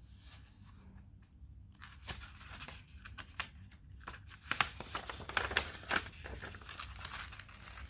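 Irregular rustling and crackling clicks over a low steady hum, growing louder in the second half.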